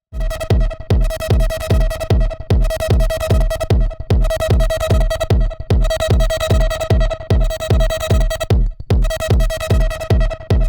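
Techno loop playing back from a DAW: a four-on-the-floor kick drum about twice a second under a sustained buzzy synth tone. The loop starts right at the beginning and briefly drops out about nine seconds in.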